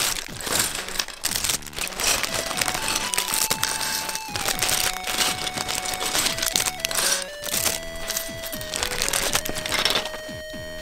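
Clear plastic bags of LEGO pieces crinkling as they are opened and handled, with the plastic parts shifting inside, over background music with a simple melody. The crinkling stops near the end, leaving the music alone.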